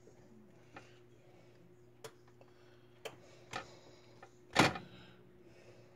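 Hands twisting and handling stuffed sausage links on a metal sheet pan: a few short soft clicks and knocks, with one much louder knock about two-thirds of the way in, over a faint steady hum.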